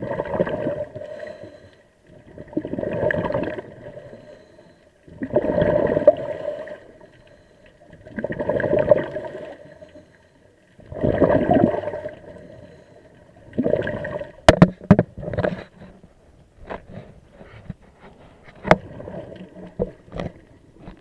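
A scuba diver's regulator exhaling, heard underwater: six gurgling rushes of bubbles, each lasting about a second and a half, coming roughly every three seconds with breathing. About two-thirds of the way through, sharp clicks and knocks take over, as the camera housing is handled.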